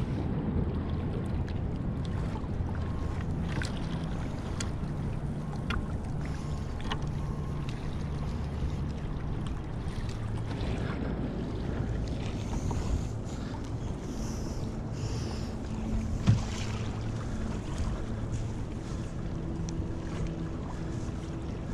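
Water lapping against a Hobie Passport 12.0 kayak hull on the sea, with wind on the microphone. There are a few light knocks, and one sharper knock about sixteen seconds in.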